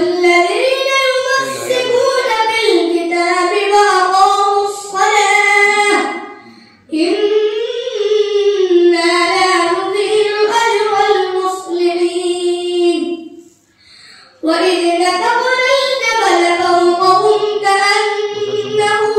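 A boy reciting the Quran in a melodic, drawn-out chanting style into a microphone, in three long phrases with pauses for breath about six and a half seconds in and near fourteen seconds.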